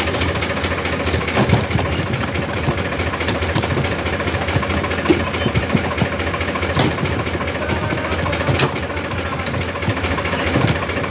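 Powertrac 439 tractor's diesel engine running steadily, with a few sharp knocks now and then.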